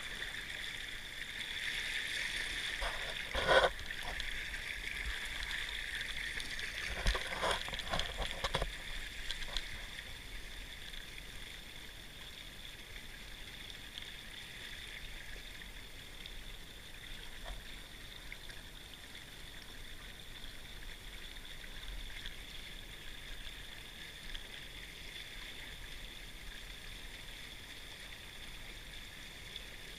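Water rushing and trickling along the hulls of a sailing kayak catamaran under way, in a steady wash. A few short knocks come in the first ten seconds, the loudest about three and a half seconds in.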